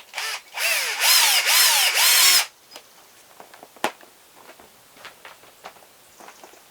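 Handheld power drill running for about two seconds, its motor pitch rising and falling as the trigger is worked, after a short blip at the start; a few light clicks and knocks follow.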